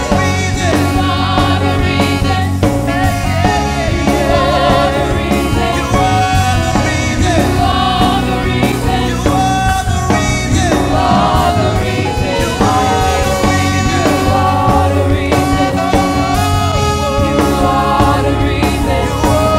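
Gospel praise-and-worship song: several voices singing long, wavering lines over a band with a steady bass.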